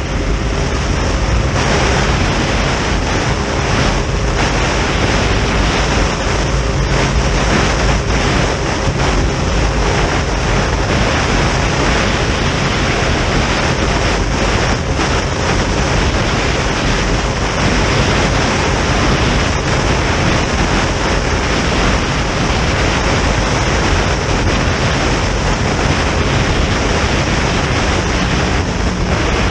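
Wind buffeting the microphone and water rushing past the hull of a boat running at high speed, with the boat's engine droning steadily underneath.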